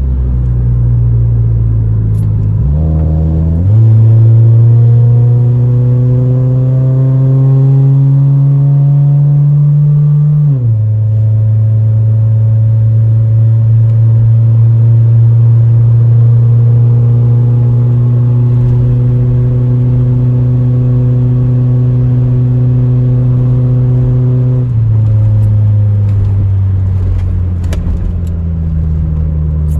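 Honda Civic EJ9 four-cylinder engine pulling under acceleration through an automatic gearbox, its pitch climbing and then dropping at gear changes about 3 and 10 seconds in, running steadily for a stretch, then dropping again near the end. The engine is misfiring on all four cylinders (codes 71–74).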